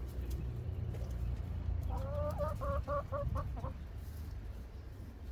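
A chicken clucking: a quick run of short, pitched clucks lasting about two seconds, over a steady low rumble.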